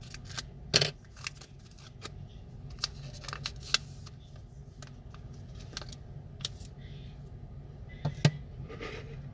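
Irregular sharp clicks and taps of small repair tools against an iPhone 6S's parts, over a steady low hum. The loudest clicks come about a second in and near the end.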